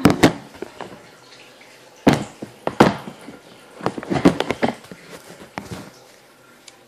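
Bursts of sharp knocks and rustling in uneven clusters, a second or two apart, fading out near the end.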